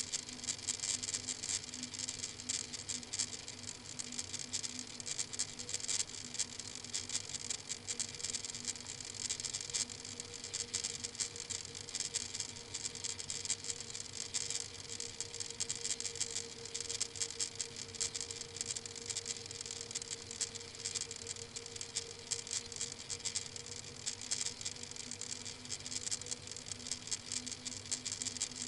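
Webcam microphone hiss with dense, fine crackling and a steady low hum.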